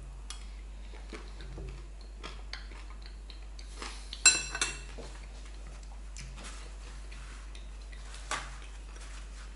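Metal spoon scraping and clinking against a glass bowl while eating: small scattered clicks, with two sharper ringing clinks about four seconds in. A low steady hum runs underneath.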